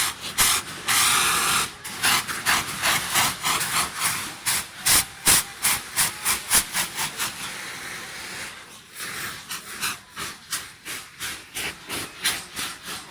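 Saites, Kalamata's hand-held cardboard gunpowder rockets, firing together: a rushing, spraying hiss of burning powder broken by many sharp cracks in quick succession. The cracks ease off somewhat after about eight seconds.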